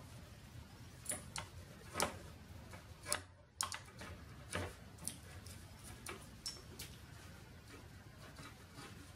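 Irwin utility knife blade, and then a chisel, cutting off protruding wooden veneer splines at a mitred corner: about a dozen irregular, sharp clicks and snaps as slivers of veneer break away.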